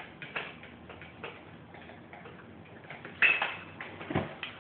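Pet door flap clicking and clattering as a dog pushes through it: a few light clicks, a loud clack about three seconds in and a dull thump just after four seconds.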